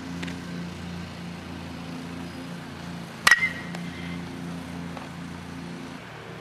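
A baseball bat hits a pitched ball once, about three seconds in, with a sharp crack and a short ringing ping. A steady low hum runs underneath and stops near the end.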